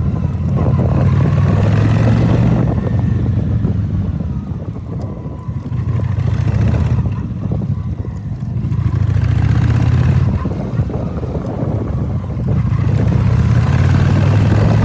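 Honda Shadow 750 V-twin engine running on the move, its note swelling and easing several times, with wind on the microphone. The owner blames the bike's strange running on spark leaking through the spark plug caps.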